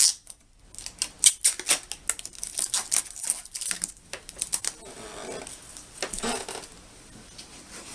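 Handling noise: a sharp click, then a quick run of sharp clicks and rustles for a few seconds, fading to a couple of fainter rustles.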